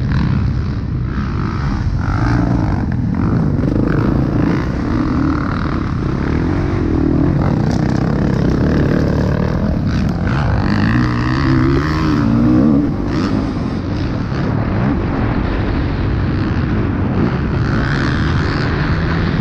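Motocross bike engine, heard from on the bike, revving up and falling back again and again as it is ridden hard around a dirt track.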